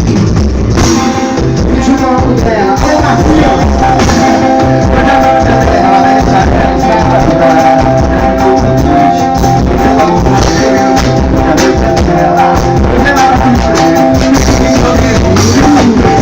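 Loud live street-carnival band music: a steady pounding drum rhythm under long held notes and singing.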